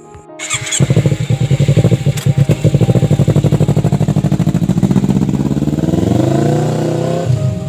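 Motorcycle engine running with a loud, rapid pulsing exhaust as the bike pulls away. The pitch rises over a couple of seconds as it speeds up, then eases off near the end.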